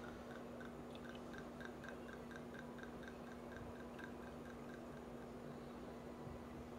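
Red wine trickling off the back of a bar spoon onto a margarita, a faint quick series of drips about four a second that dies away about five seconds in. A low steady hum runs underneath.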